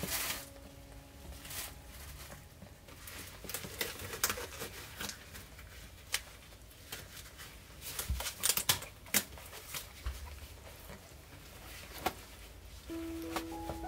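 Mother cat licking and chewing at a newborn kitten: irregular small clicks and smacks, with a denser cluster about eight to nine seconds in.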